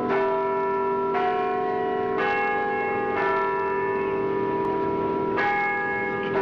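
Church bells ringing: bells of different pitch struck one after another, about one a second, with a longer gap before the last stroke, each note ringing on under the next.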